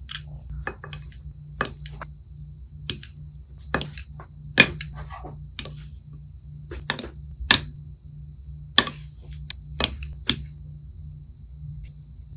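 Slime being squeezed and played with by hand, giving about a dozen irregular sharp pops and clicks over a steady low hum.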